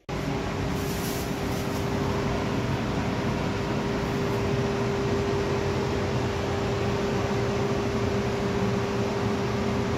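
Spray-booth extraction fan running steadily: a constant rush of air with an even hum.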